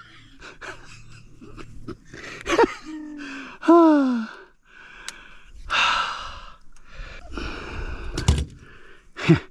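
A person breathing hard, with gasping breaths and a loud sigh that falls in pitch about three and a half seconds in, plus a few sharp knocks.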